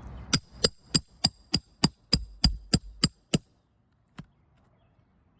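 Roofing hammer striking steel in about eleven quick, light, evenly spaced taps with a metallic ring, roughly three a second, then one more tap a moment later. It is working a roofing nail out from under an asphalt shingle.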